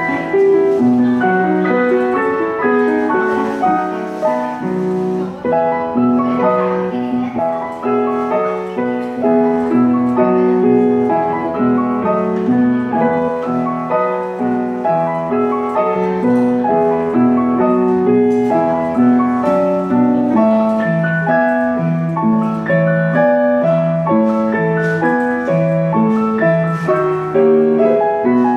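Upright piano played four hands, two players at one keyboard, performing a berceuse, a gentle lullaby piece. Melody above and a steady pattern of repeated notes in the bass.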